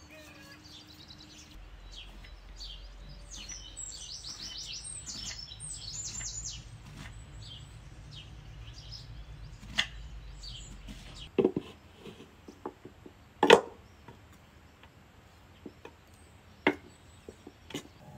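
Small birds chirping for the first several seconds, then a string of separate sharp knocks, the loudest about halfway through.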